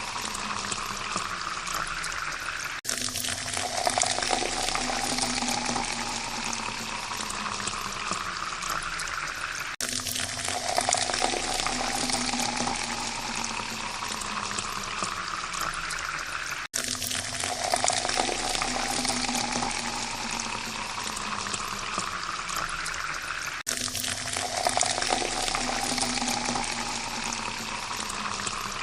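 Water pouring steadily into a glass, its tone rising as the glass fills. The pour breaks off briefly and starts over about every seven seconds, four times.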